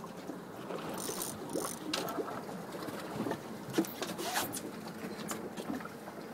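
Fishing reel being cranked with a steady whirring tick, with water splashing against the boat's hull as the fish is brought to the side.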